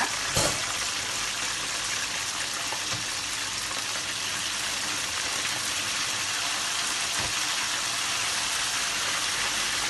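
Cornflour-coated chicken wings deep-frying in hot oil, a steady sizzle, during their second fry. A brief knock sounds about half a second in, with fainter ones later.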